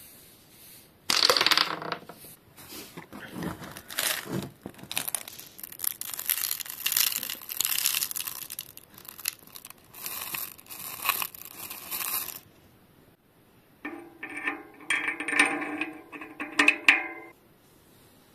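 Hand work on bicycle front hub parts: a long stretch of scraping and rubbing with scattered clicks, then about three seconds of a pitched squeaking near the end.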